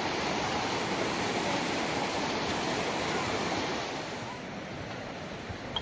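Steady rush of flowing river water, dropping somewhat in level about four seconds in.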